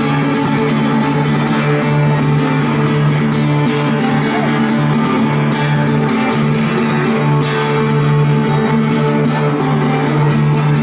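Live guitar solo over a steady held low note, played loud and without a pause.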